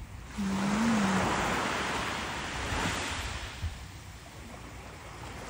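Surf on a sandy beach: a wave breaks and washes up the shore, swelling sharply just after the start and slowly fading over the next few seconds.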